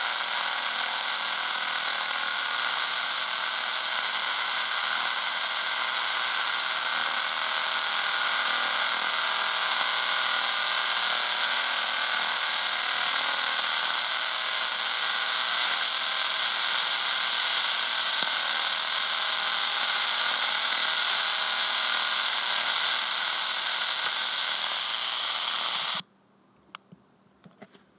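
Shortwave radio receiver putting out steady static hiss from its speaker while tuned across the 49-metre band. The hiss cuts off abruptly about 26 seconds in, as the set is switched to FM, and a few faint clicks follow.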